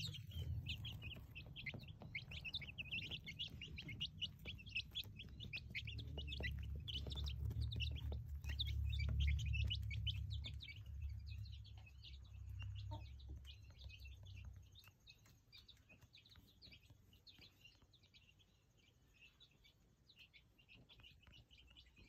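Silkie and Ameraucana chicks peeping: a dense run of rapid, high peeps that thins out after about ten seconds. Under them a low rumble is the loudest sound, strongest about nine seconds in, and it stops about fifteen seconds in.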